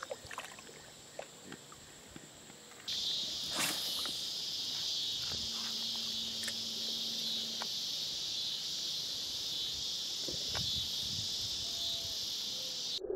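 Steady, dense chorus of insects chirring in the evening, starting abruptly about three seconds in. Before it, quiet water-side ambience with a few small knocks.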